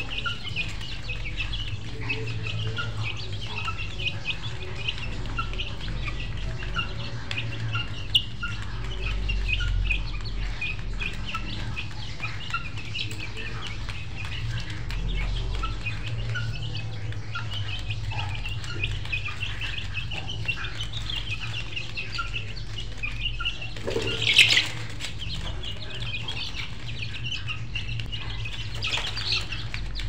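Poultry-yard background: many birds chirping rapidly, with chickens clucking and a steady low hum underneath. One louder, sudden sound comes about two-thirds of the way through.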